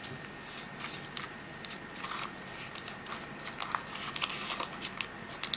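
Baking parchment lining a cake tin crinkling and rustling in many short, light crackles as hands fold and crimp the edge of puff pastry against it.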